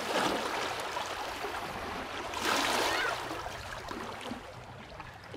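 Water waves washing and splashing in a steady rush that swells a little after two and a half seconds and eases toward the end.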